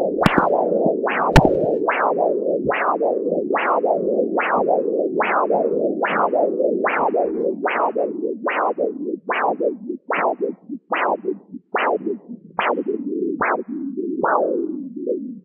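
Pulsing whoosh of arterial blood flow through a CAT Doppler's flat probe, one beat a little under every second, each a sharp falling whoosh over a steady hiss, with two sharp clicks in the first second and a half. In the second half the beats grow fainter and break up as the blood-pressure cuff is pumped up past about 150 mmHg, toward occluding the artery.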